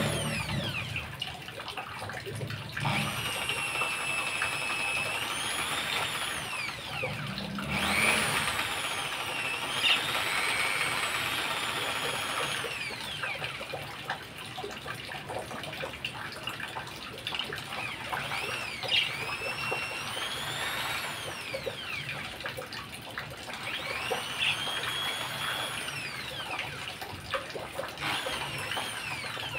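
Corded electric drill running in several bouts, its motor whine rising and falling in pitch as it speeds up and slows down.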